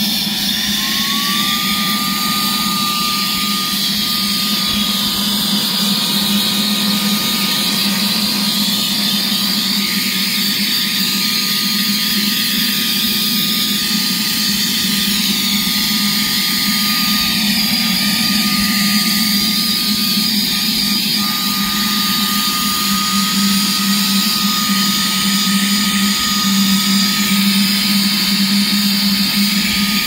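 Saker 3-in-1 mini handheld vacuum cleaner running steadily, its nozzle worked over a perforated plastic dust filter. Its motor whine rises a little in pitch over the first couple of seconds, then holds steady over a low hum and airflow rush.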